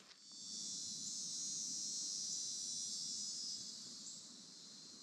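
Chorus of insects in the woods: a steady, high-pitched drone that swells up within the first half second and eases off gradually over the last second or so.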